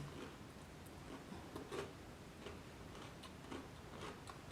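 A person chewing a mouthful of crispy fried chicken sandwich: faint, irregular crunches and mouth clicks.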